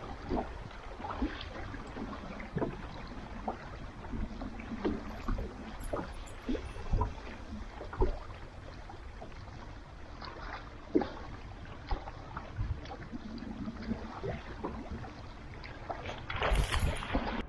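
Boat on the water: a steady low wash with scattered light knocks and clicks, and a short rush of noise about a second before the end.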